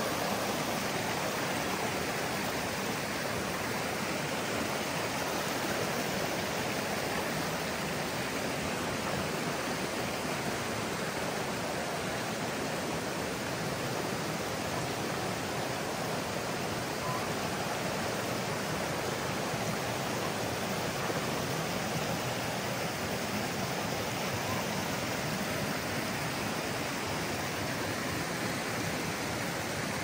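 Shallow river water rushing steadily over boulders below a waterfall, an even, unbroken rush of water.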